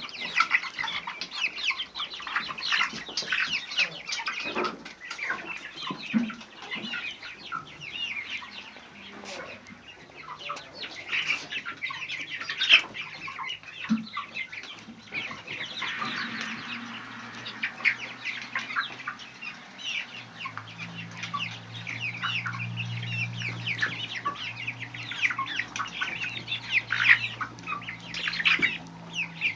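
Poultry clucking and chattering, a dense run of short calls throughout. A steady low hum joins in about two-thirds of the way through.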